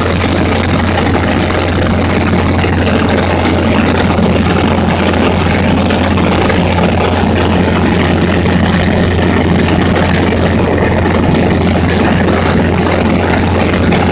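Airplane engine running steadily in flight: a constant low drone under an even wash of noise.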